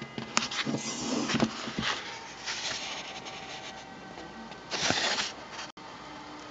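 Paper rustling and crackling as the soft cover and yellowed pages of an old paperbound book are handled and opened. There is a string of small crinkles and clicks in the first two seconds and a louder page-turn swish just before five seconds in.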